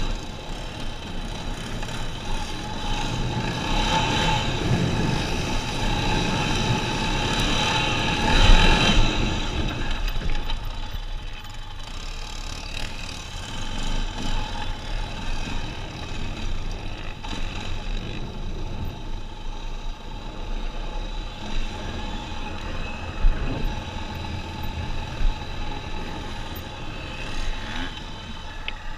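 ATV engine running as the quad rides over sand. It is louder for the first nine seconds or so, then settles to a lower, steady drone.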